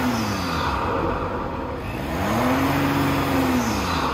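The 3.0-litre V6 turbo-diesel (EcoDiesel) engine of a 2018 Jeep Grand Cherokee, fitted with an Injen aftermarket intake, revved while standing. The engine speed drops back from one rev about a second in, then climbs, holds and falls again near the end, with a rushing sound over the engine note.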